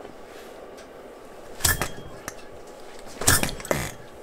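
Philip Duclos Odds n Ends model hit-and-miss engine being turned over by hand by its flywheels: three short bursts of turning-over noise, about a second and a half in and twice near the end, each dying away quickly without the engine firing. It is a failed start that the builder puts down to the cast iron piston rings losing compression.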